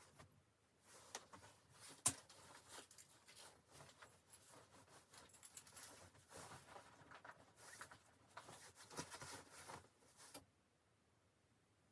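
Close rustling and scraping handling noises, with a sharp click about two seconds in, stopping suddenly near the end.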